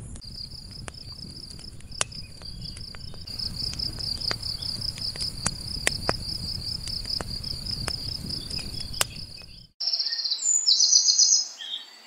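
A steady, fast-pulsing high insect trill, like a cricket, over a low rumble and scattered sharp crackles of a campfire. Near the end the sound cuts off abruptly and louder bird chirps take over.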